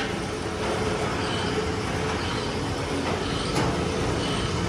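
Steady drone of factory machinery running, even throughout with a faint steady hum.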